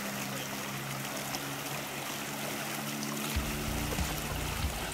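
Water of a shallow river rushing and splashing around bicycles being ridden and pushed through it, a steady noisy wash. From about three seconds in, a deeper rumble joins it along with a few knocks.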